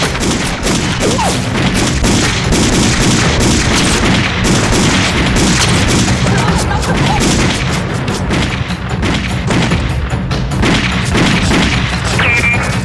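Continuous rifle and pistol gunfire with booms, a dense battle soundtrack mixed with background music. A short shout comes near the end.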